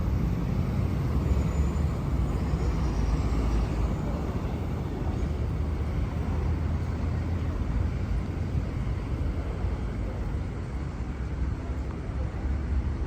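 Steady rumble of city street traffic along a busy avenue, with the low noise of passing vehicles.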